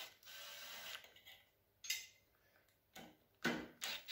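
18-volt cordless driver unscrewing a screw from a wooden block. It runs steadily with a fine rapid ticking for about the first second, then in short spurts, the loudest near the end.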